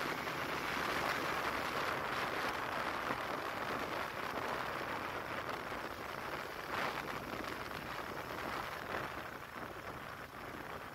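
Steady rushing road and wind noise from a slowly moving vehicle recording the street, with no engine note standing out and a brief louder gust about seven seconds in.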